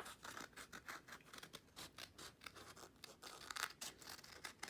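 Scissors snipping through folded paper: a quick, irregular run of faint cuts with light paper rustling.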